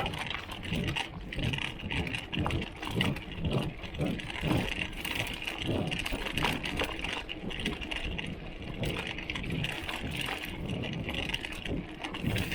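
Water bottle cage on a Giant XTC mountain bike rattling with irregular knocks and thumps as the bike rolls over rough trail, over steady tyre and trail noise.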